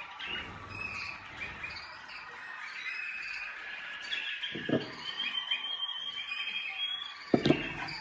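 Canaries chirping and twittering in a steady stream of short high calls. Two short low knocks come through, one about halfway and a louder one near the end.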